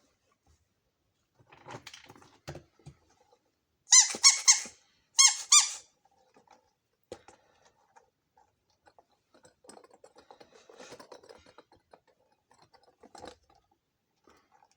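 Small toy kitchen pieces being handled, with scattered light clicks and rustling, and two short bursts of high squeaking about four and five seconds in.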